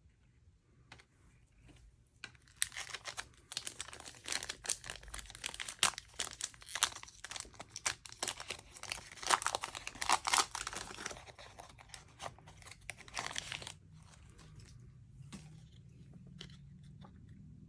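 Foil wrapper of a Panini Mosaic basketball card pack being torn open and crinkled in the hands: a long run of dense crackling from about two seconds in until near the end, then a few faint clicks as the cards are handled.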